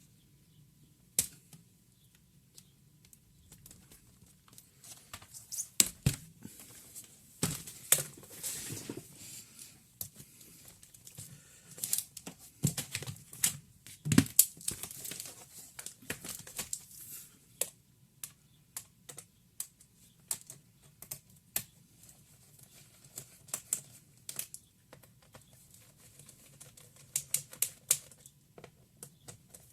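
Irregular small clicks, taps and brief scrapes of tools and plastic laptop parts being handled, as in taking a notebook apart. The clicks are loudest and thickest in the first half.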